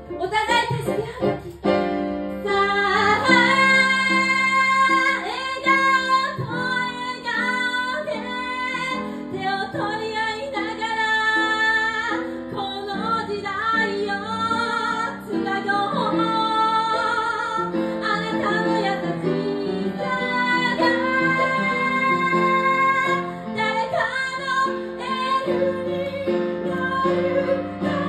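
A woman singing a Japanese song live into a microphone, with vibrato on held notes, over electric keyboard accompaniment.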